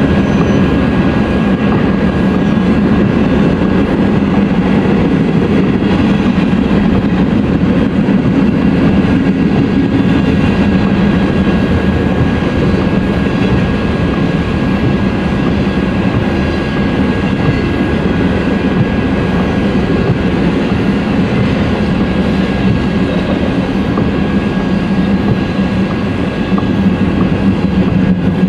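Freight train of covered hopper cars rolling past close by: a steady, loud rumble of steel wheels on rail, with a thin steady whine above it.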